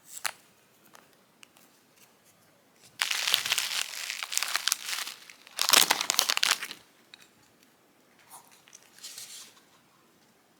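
Packaging being handled and torn open by hand: a click at the start, then two long spells of loud crinkling and tearing about three and six seconds in, and a fainter rustle near the end.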